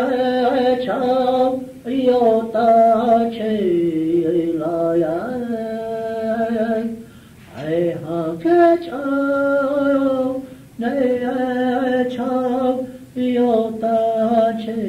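A chant sung in long held notes, with phrases that fall in pitch and a few short pauses for breath. It is heard on an old consumer cassette recording.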